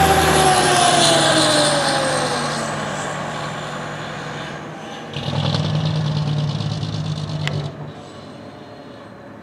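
Fire engine's siren winding down, its pitch falling steadily over the first two seconds and fading as the engine drives off, over a deep steady low drone. About five seconds in, a louder deep steady low blast from the engine lasts about two and a half seconds, then fades, with a sharp click near the end.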